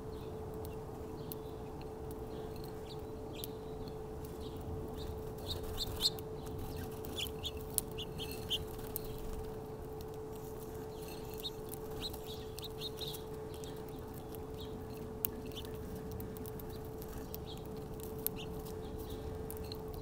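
Small birds at a seed feeder chirping in short, high calls, busiest from about five to nine seconds in, with a few sharp clicks. A steady low hum runs underneath.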